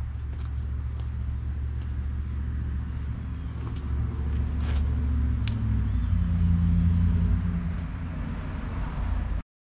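Low motor-vehicle rumble that swells and then eases off, with a few faint light clicks. It cuts off abruptly near the end.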